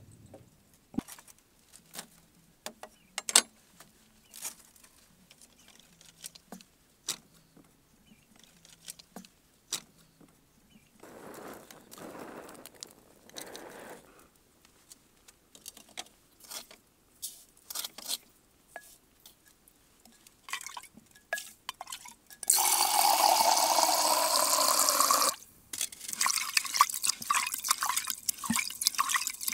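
Scattered light knocks and clatter, then water poured into a vessel, its pitch rising as it fills. After that comes wet splashing and rubbing as a hand scrubs the inside of an earthen clay pot half full of water.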